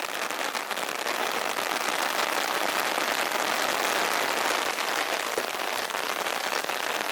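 A sudden downpour of rain pattering steadily and densely on an open umbrella.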